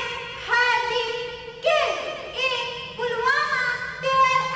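A young woman singing solo without accompaniment, in long held notes that glide up and down, with short breaks between phrases.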